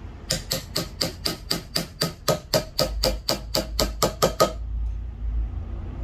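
A mallet rapidly tapping a carving chisel into zelkova wood, cutting a relief nameplate, about five strikes a second; the strikes stop about four and a half seconds in.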